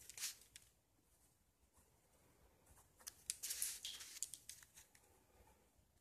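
Quiet paper rustling and scratching from a spiral notebook being handled, in two bursts: a brief one at the start and a longer one of about two seconds from the middle.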